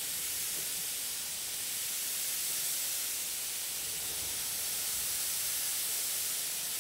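Gravity-feed airbrush spraying Indian ink, giving a steady hiss of compressed air.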